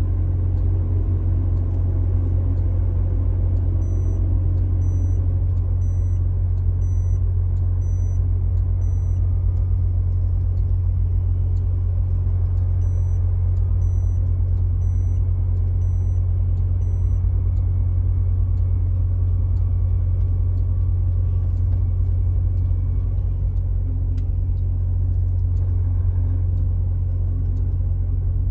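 Car driving at steady speed on a highway: a constant low rumble of engine and tyres on the road. Faint high beeps repeat about once a second in two short runs, about four seconds in and again near the middle.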